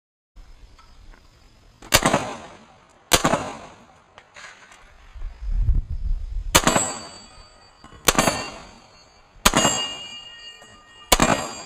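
Six pistol shots, spaced a second or more apart, the later ones followed by the ringing of struck steel targets.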